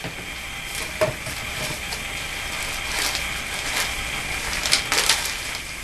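Scraps of wet, glue-soaked newspaper being rubbed and wiped across a tabletop to mop up excess papier-mâché glue, with rustling and a few short crackles of paper about one, three and five seconds in.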